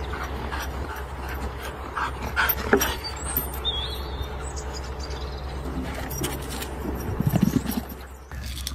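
A dog panting in quick, even breaths, with a few sharp knocks around the middle and a short, rough low burst near the end, over a steady low rumble.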